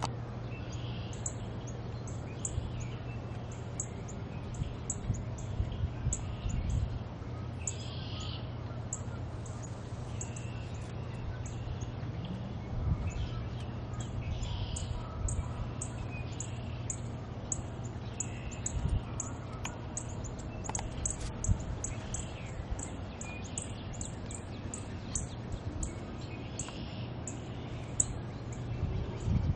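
Small birds chirping: a steady stream of short, high-pitched chirps with some lower calls mixed in, over a constant low hum and a few dull low thumps.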